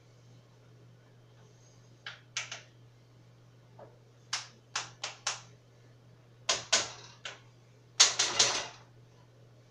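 Kitchen items handled on a counter: a string of sharp clicks and knocks, in ones and twos at first, then a louder quick clatter near the end. A faint steady low hum lies underneath.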